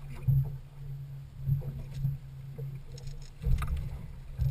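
A boat's motor running with a steady low hum, with a few short knocks and bumps over it, the loudest about three and a half seconds in and again near the end.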